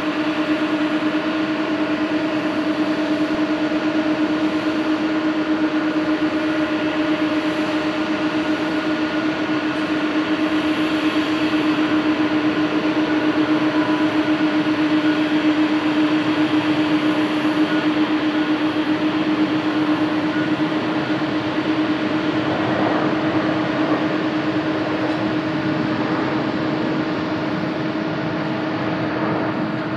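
Boeing 737-800's CFM56-7B jet engines running at low thrust as the airliner taxis onto the runway and lines up: a steady drone with a constant hum.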